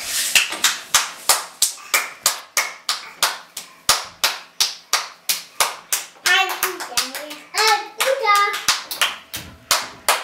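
A child clapping hands steadily, about three claps a second. Twice around the middle a young child's voice calls out briefly over the claps.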